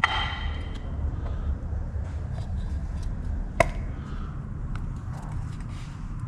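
Metal parts or tools being handled during engine assembly. A short ringing metallic clink comes right at the start, and a single sharp knock comes about three and a half seconds in, over a steady low rumble.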